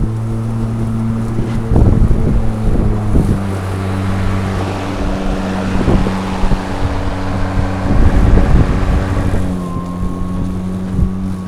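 Kobalt battery-powered self-propelled lawn mower running while mowing, a steady electric motor and blade hum. A louder rushing noise swells for several seconds in the middle. There is wind buffeting on the microphone.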